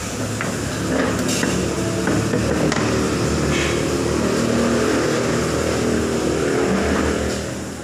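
Steady low engine rumble of a motor vehicle running, fading out near the end.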